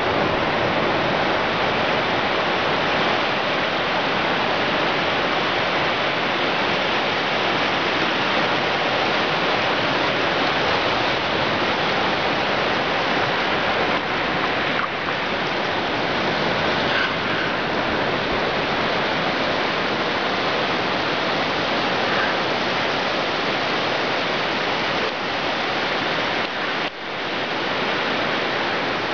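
Steady rush of surf washing onto a beach, an even wash of noise with a brief dip near the end.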